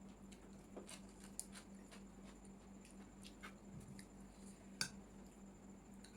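Faint eating sounds: small wet clicks and squishes of chewing, with a sharper click about five seconds in, over a faint steady hum.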